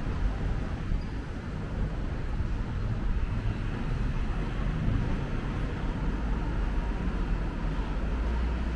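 Steady rumble of city road traffic, with no single vehicle standing out.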